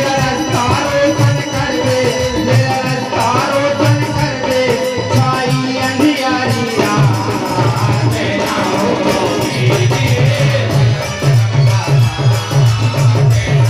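Live Indian folk music for a Gangaur dance, played through loudspeakers: a drum beats a steady rhythm under a sung melody. The drumming grows denser and more prominent in the second half.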